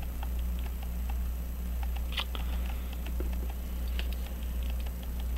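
Light, irregular clicks and scrapes of metal against the brass plates of a verge fusee pocket watch movement as it is handled and worked at, trying to free stubborn pins, with a sharper click about two seconds in and another about four seconds in. A steady low hum runs underneath.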